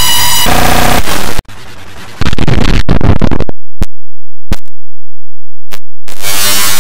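Harsh, heavily clipped electronic noise with a buzzing tone for about three and a half seconds, cut off abruptly into silence broken by a few short clicks. Loud noise bursts back in near the end.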